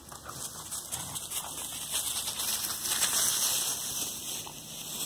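Crackling rustle of dry grass and pine straw as puppies move through it close by, loudest in the middle.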